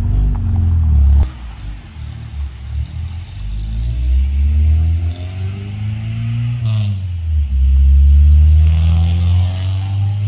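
H23A-swapped Honda Accord's four-cylinder engine pulling away and accelerating up the road, revs climbing. The revs drop at a gear change about two-thirds of the way through, then climb again.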